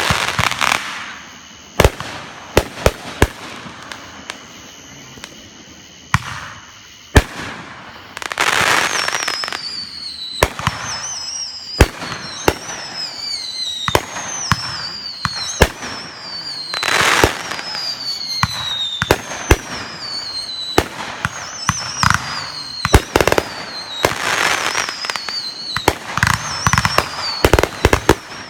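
Fireworks going off: a string of sharp bangs and crackling, hissing bursts. About a third of the way in, a run of falling whistles begins, one after another about once a second, with more bangs among them.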